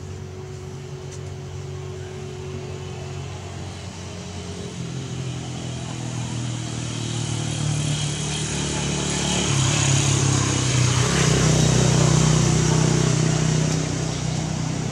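Motor vehicle engine passing by: a steady low hum that grows louder over several seconds, is loudest about ten to thirteen seconds in, then begins to fade.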